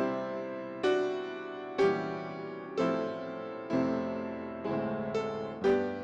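Solo piano playing slow chords, a new chord struck about once a second and left to die away, with quicker notes near the end.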